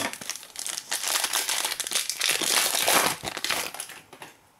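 Foil wrapper of a Prizm basketball card pack crinkling as hands handle it, dying away about four seconds in.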